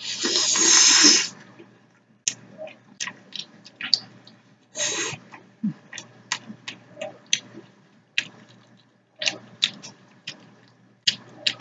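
A person eating pasta in sauce close to the microphone: a long wet slurp at the start and another about five seconds in, with wet chewing and lip-smacking clicks in between.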